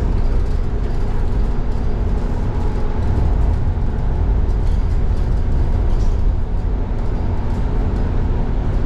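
Cabin noise inside a moving Irizar ie-tram battery-electric bus: a steady low road rumble with a faint constant hum.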